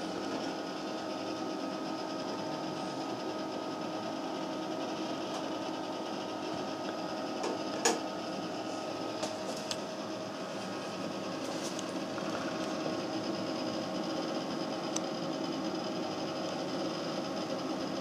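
Steady whir of a desktop PC's cooling fans and power supply running, with a constant hum of several tones. A single sharp click comes about halfway through.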